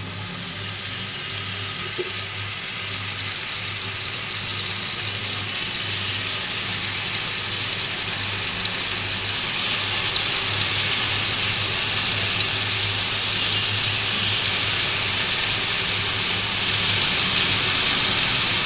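Marinated chicken pieces sizzling in hot oil and butter in a frying pan, a steady hiss that grows louder as more pieces are laid in.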